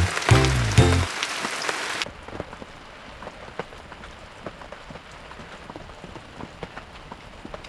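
Rain falling steadily, with many separate drops ticking. Background music dies away in the first two seconds.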